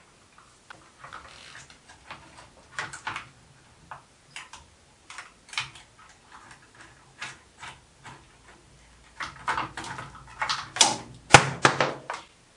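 Small metal clicks, taps and knocks from hands handling screws and a readout-scale fitting on a milling machine table, growing busier near the end with one sharp, louder knock.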